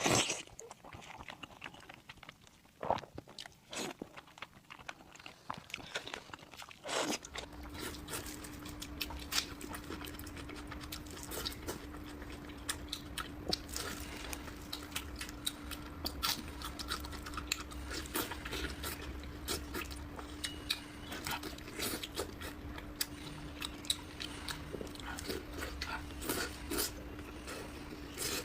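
Close-miked chewing and biting of a person eating Thai braised pork (palo), with many small wet clicks and crunches. A steady low hum comes in about seven seconds in and carries on underneath.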